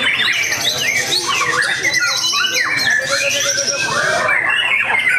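White-rumped shama singing a rapid, unbroken run of varied whistles, trills and sharp chirps.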